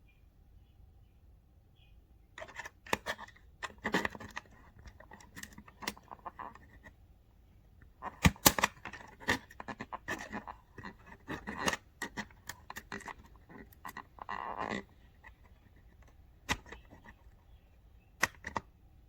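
Bench work on an accordion: irregular clicks, taps and short scrapes of small tools and parts being handled, with a denser cluster of knocks about eight seconds in and a brief rasping scrape near the end. No notes are played.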